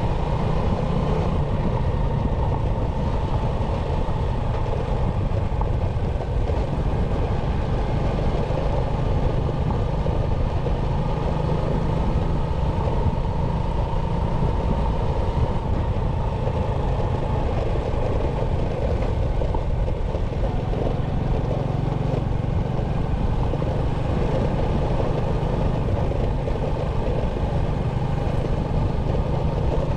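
Motorcycle riding along at a steady pace, its engine running evenly under a constant rumble of road and riding noise, recorded by a camera mounted on the bike.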